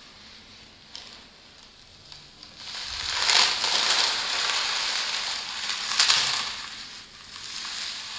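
Brittle, porous carbon of a burnt sugar-and-baking-soda fire snake crunching and crumbling as a hand crushes it. The gritty crackle swells about three seconds in, peaks twice, and eases off near the end.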